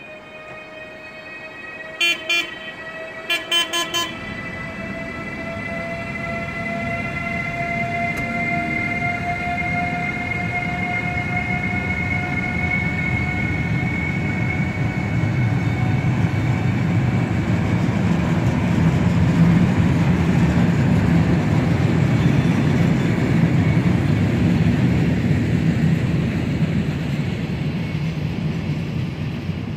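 Class 189 electric locomotive sounding its horn six short times about two seconds in, two toots and then four, as its traction motors whine rising in pitch while it accelerates. Then comes the rumble of the loaded car-carrier wagons rolling past, growing louder.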